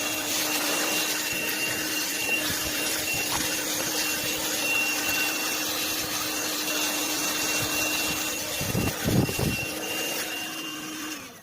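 Black & Decker AV1205 12-volt handheld car vacuum cleaner running steadily with a constant whine as it sucks up dirt from a car floor mat. It is switched off just before the end and the sound dies away.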